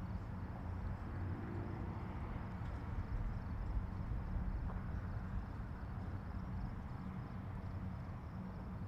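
Steady low hum of marine diesel engines, with a faint outdoor hiss behind it.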